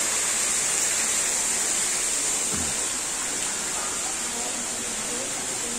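Greenhouse misting nozzles spraying humidifying mist: a steady hiss like rushing water that eases slightly about halfway through.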